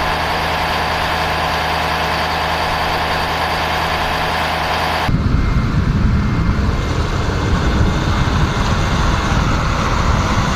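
Ford ambulance's engine idling with a steady low hum. About halfway through it changes suddenly to an uneven, gusty low rumble.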